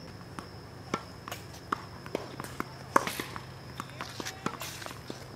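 Tennis ball and racket on a hard court: one sharp racket strike about three seconds in, among lighter knocks from ball bounces and footsteps, over a steady low hum.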